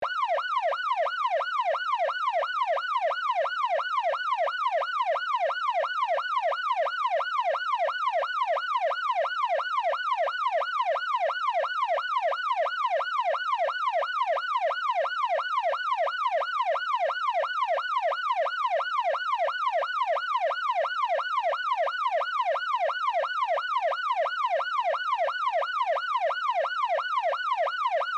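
Electronic police siren in fast yelp mode, its pitch sweeping up and down about three times a second, steady and unchanging.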